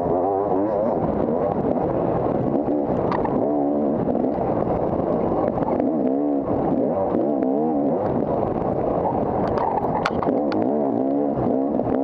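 A 250-class dirt bike engine running under constant throttle changes, its pitch rising and falling again and again, with a few sharp clicks.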